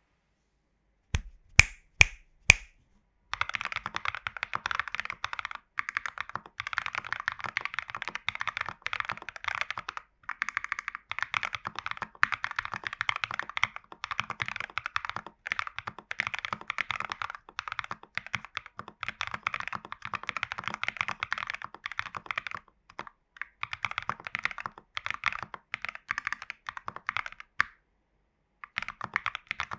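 Typing on a TU40 plastic-case 40% mechanical keyboard with lubed AKKO Vintage White switches, case and PCB foam and a tape mod, under XMI keycaps. Four separate, louder clicks come first, then rapid continuous keystrokes with a few brief pauses.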